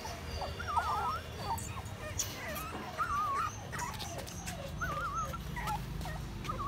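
Puppies playing with a ball toy: short, wavering, warbling squeals come about every two seconds among light knocks and scuffles.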